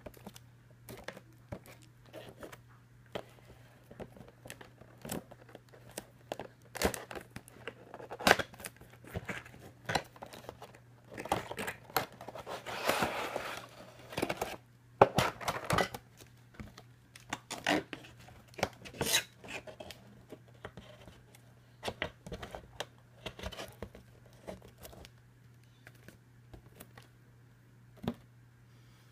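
Cardboard box and clear plastic packaging being handled as a plastic tray is slid out of the box: a string of sharp clicks, crinkles and scrapes, with a denser rustling stretch about halfway through.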